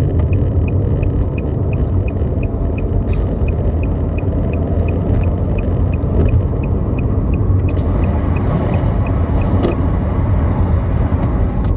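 Steady low rumble of a car heard from inside its cabin, with a faint, regular ticking at about three a second and a single click near the end.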